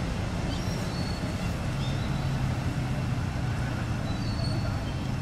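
Steady low outdoor rumble, with a few faint, short high chirps over it.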